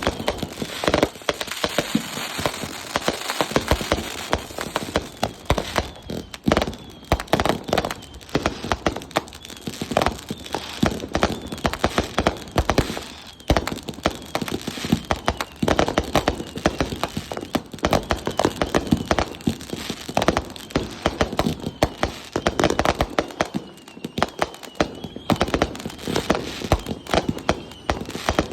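Consumer fireworks going off in a continuous string of sharp bangs and crackles, several reports a second throughout.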